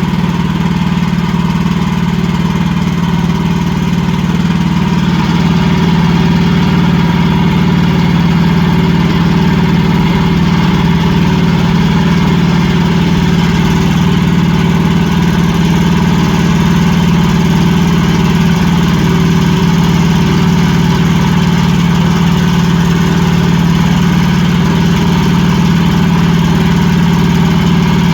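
Wood-Mizer LX55 band sawmill running steadily at a constant, unchanging pitch.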